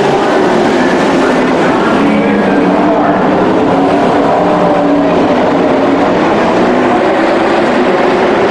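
A pack of dirt-track race trucks' engines running on the oval, several engines at once, their pitch rising and falling as they go around.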